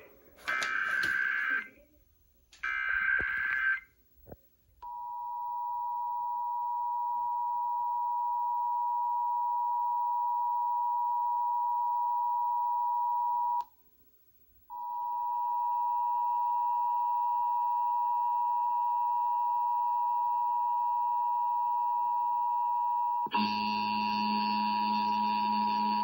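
Emergency Alert System test heard through an FM clock radio's speaker: two screeching bursts of the digital SAME header, then the steady, piercing EAS attention tone. The tone breaks off for about a second around the middle and resumes, and near the end a harsher buzzing layer joins it.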